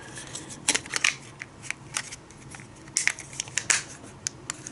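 Plastic casing of a USB power bank being handled and snapped back together: a string of irregular sharp clicks and taps, the loudest near the first second and again about three seconds in.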